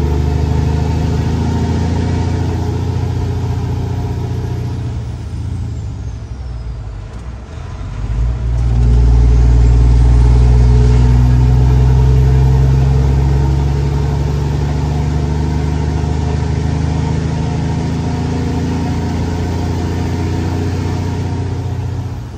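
Semi truck's Detroit Diesel Series 60 12.7-litre engine pulling a loaded dry van trailer up to highway speed, heard from inside the cab. Its steady running dips briefly about seven seconds in, as at a gear change, then pulls louder for several seconds before easing back.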